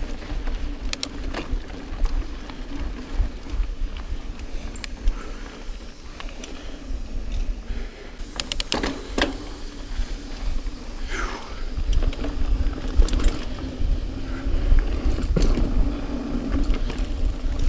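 Mountain bike riding fast over dirt singletrack: wind rumbling on the microphone, tyres rolling on the trail, and the bike rattling and clicking over bumps.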